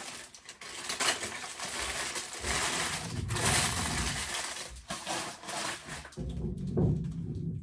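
Paper bread bag crinkling and rustling in the hands as the leftover bread is wrapped up in it.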